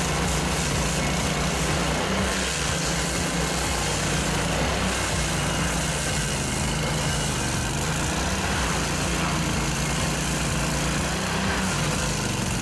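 Laski F460 walk-behind stump grinder running steadily, its engine holding an even pitch while the cutter wheel grinds down a tree stump.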